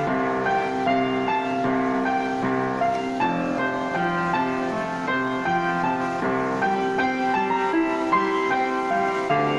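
Piano music: a piano playing a steady, flowing piece of chords and melody notes.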